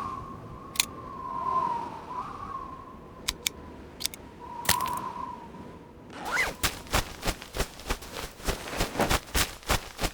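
Recreated foley: a few sharp hits and clicks over a faint wavering tone, then, from about six seconds in, quick running footsteps, about three a second, until the sound cuts off.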